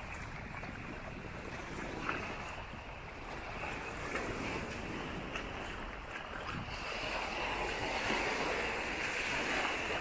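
Small waves washing up on a sandy beach, growing louder about two-thirds of the way through, with wind buffeting the microphone.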